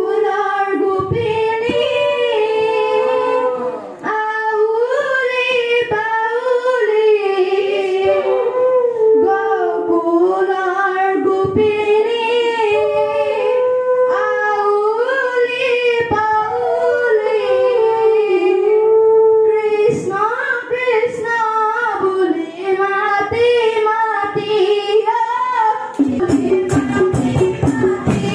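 A boy's solo voice singing a slow, ornamented Assamese dihanam devotional line, with long wavering held notes and no accompaniment. Near the end, fast percussion comes in.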